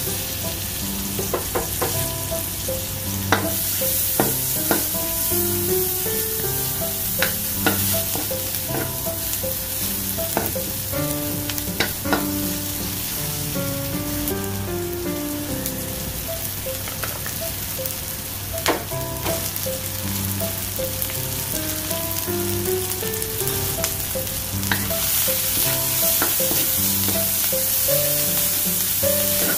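Onion, garlic and chillies sizzling in hot oil in a wok, stirred with a wooden spatula that taps and scrapes against the pan now and then. Soft background music with a melody plays underneath.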